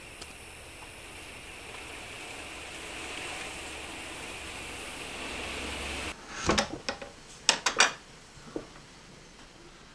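Steady outdoor evening hiss that cuts off abruptly about six seconds in, followed by a quick series of sharp clicks and knocks from the metal latch of an old wooden door being worked open.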